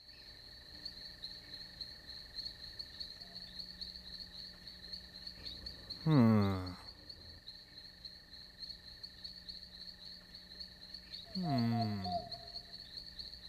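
Crickets chirping steadily in a high, pulsing drone, as night ambience. About halfway through and again near the end come two loud, short sounds that slide down in pitch.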